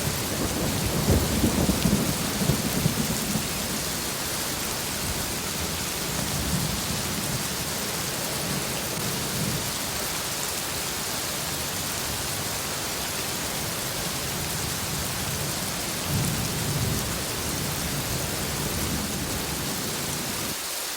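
Heavy rain falling steadily, with low rolls of thunder. The loudest roll comes about one to three seconds in, and a weaker one comes near sixteen seconds.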